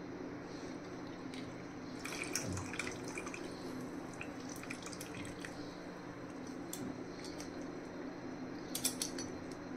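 Half a lemon being squeezed by hand into a kadhai of sugar water heating on a gas stove, the juice dripping and splashing into the water, with a few sharp drops about two seconds in and again near the end over a steady hiss.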